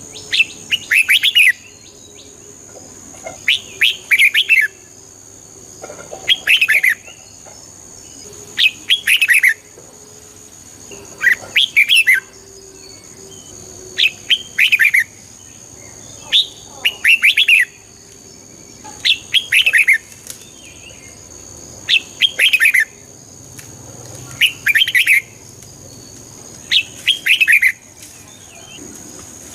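Red-whiskered bulbul singing, repeating the same short phrase of a few quick whistled notes about every two and a half seconds.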